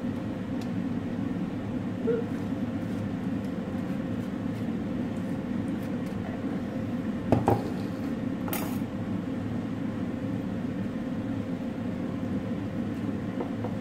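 Metal box grater being handled: a sharp knock about halfway through as it is set down on the counter, then a short scrape, over a steady low hum in the room.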